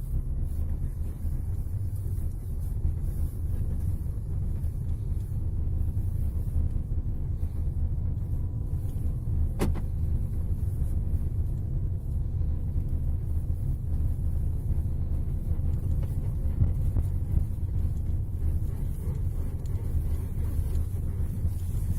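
Skoda Octavia A7 with a steady low rumble and one sharp click about ten seconds in. The car has a front suspension creak, put down by the dealer to worn rear silent blocks of the front control arms.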